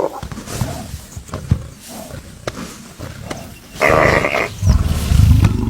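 Lion growling in harsh bouts, quieter with scattered ticks at first, then loud about four seconds in and again near the end.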